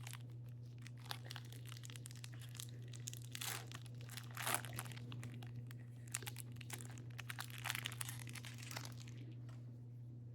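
Plastic wrapper of a Topps Series 1 trading-card pack being torn open and crinkled, a run of crackling rustles with several louder bursts.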